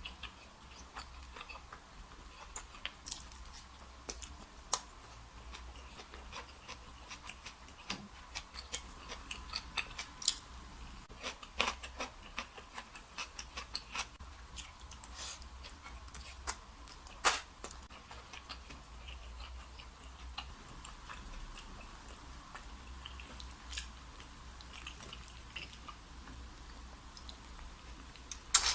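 Close-miked chewing and mouth sounds of someone eating, with many small sharp clicks and two louder knocks, one about halfway through and one near the end, over a steady low hum.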